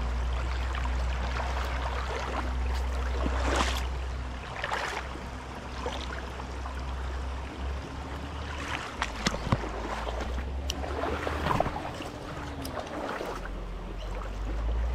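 Small creek's water running steadily over a constant low rumble, with a handful of short sharp clicks and knocks through the middle.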